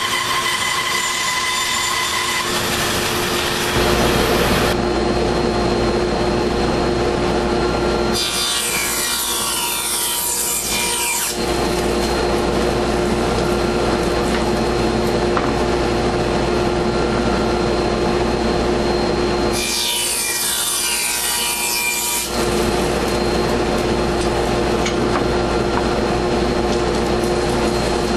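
Bandsaw cutting a tenon cheek in a wooden table apron, then a radial arm saw running, its blade pulled through the board twice to cut the tenon shoulders.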